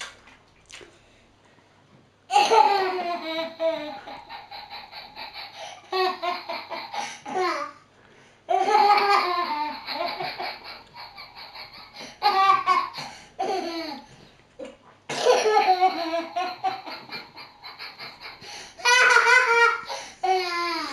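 A toddler belly-laughing in repeated fits: about six bouts of high-pitched laughter with short pauses between them, starting a couple of seconds in.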